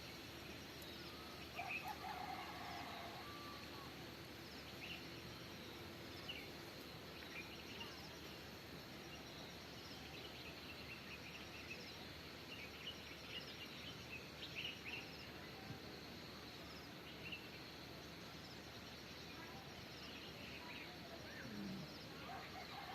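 Birds calling and chirping now and then over a faint, steady outdoor background hiss, with a thin steady high-pitched tone underneath.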